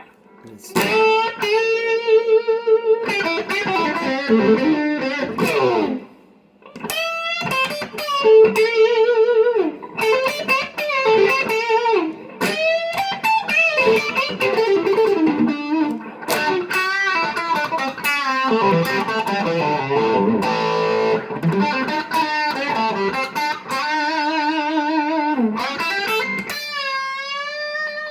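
Epiphone Les Paul electric guitar played as single-note lead lines: sustained notes with wide vibrato, string bends and slides, in phrases separated by short pauses. The guitar is slightly out of tune.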